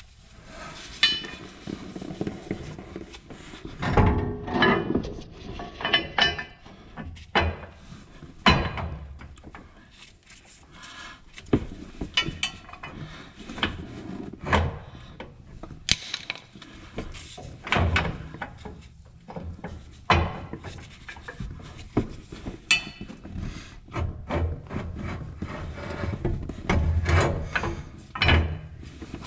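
Irregular metal knocks, clanks and scrapes as a steel snow plow mounting bracket is worked into place against a pickup's frame and small hardware is handled, with a dozen or more separate knocks of varying loudness.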